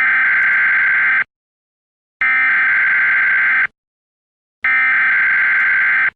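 Emergency Alert System data header: three identical bursts of electronic data tones, each about a second and a half long with a second's silence between them, the coded opening of an emergency broadcast.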